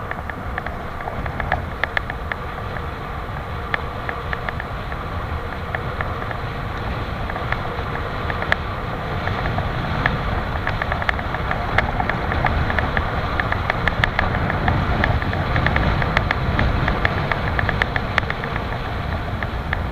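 Wind buffeting the microphone and the bike's tyres rumbling over a rough, potholed road as it rolls downhill, with many small clicks and rattles. The rumble grows louder partway through as speed builds.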